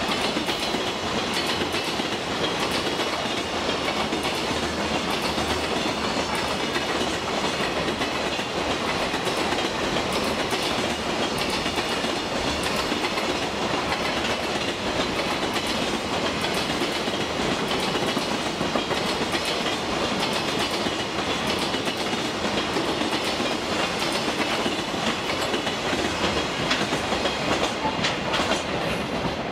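Container flat wagons of a freight train rolling steadily past, their wheels clattering and clicking over the rail joints in a continuous run.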